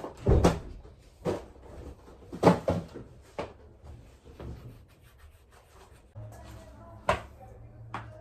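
Groceries being put away: a series of sharp knocks and clunks as items are set down and doors and shelves are handled, with rubbing and rustling of packaging in between. A low steady hum starts about six seconds in.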